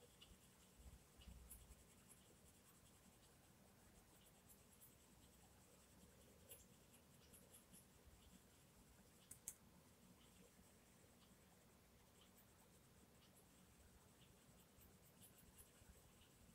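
Faint scratching of a Castle Arts Gold coloured pencil on colouring-book paper in small, light strokes, with scattered soft ticks and one sharper click about nine and a half seconds in.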